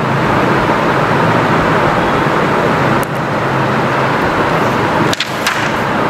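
Steady, loud background noise with a few short rustles and clicks around three seconds and five seconds in, as a textbook page is handled and turned.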